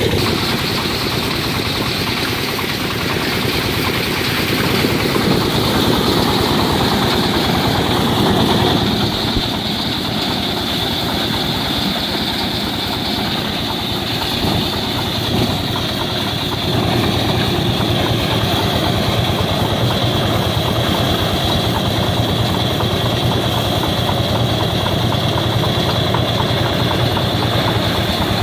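Engine-driven MAQTRON soya bean thresher running steadily while bean stalks are fed into it, a loud continuous mechanical din whose low hum strengthens a little past halfway through.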